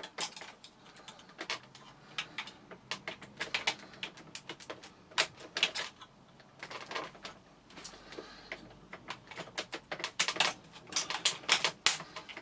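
Irregular clicks and knocks of the plastic housing parts of a Vax Mach Air upright vacuum cleaner being handled and pushed into place, with a quick run of clicks near the end.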